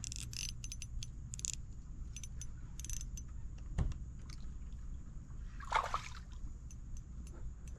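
Light clicking and jingling from the fishing tackle while a smallmouth bass is played on an ultralight rod, then a single knock about four seconds in and a brief scrape near six seconds.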